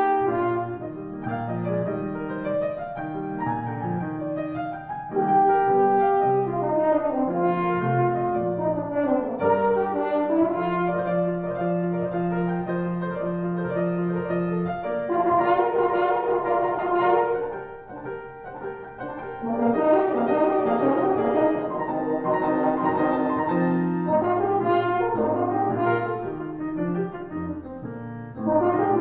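French horn playing a classical solo melody of sustained notes, accompanied by a grand piano; the music eases briefly quieter partway through before picking up again.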